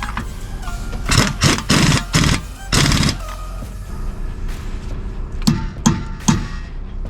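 Background music with a steady low bass and held tones, and a handful of sharp percussive hits in two clusters, near the start and past the middle.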